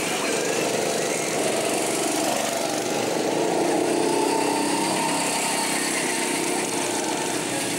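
Several small single-cylinder go-kart engines running on the track, their notes rising and falling and overlapping as the karts speed up and slow down.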